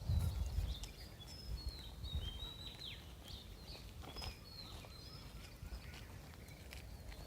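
Several forest birds calling, with short whistled chirps and downslurred notes overlapping one another, over a low rumble that is heaviest in the first second.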